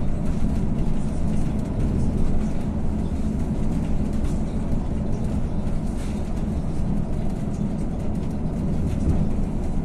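Interior of an Iveco bus driving along a road: a steady low engine drone and road rumble.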